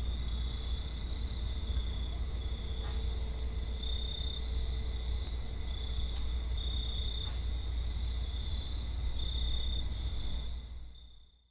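Insects chirring steadily in a high, pulsing band over a steady low rumble, fading out near the end.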